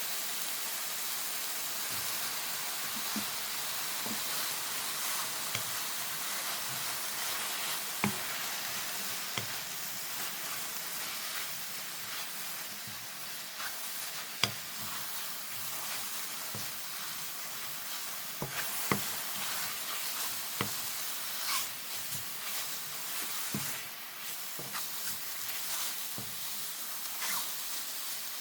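King oyster, king trumpet and enoki mushrooms stir-frying in a hot pan: a steady sizzle, with about a dozen sharp knocks of the spatula against the pan at irregular intervals.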